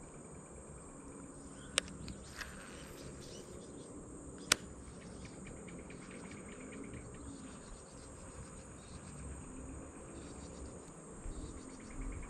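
Insects chirring in a steady high-pitched drone, with two sharp clicks about two and four and a half seconds in.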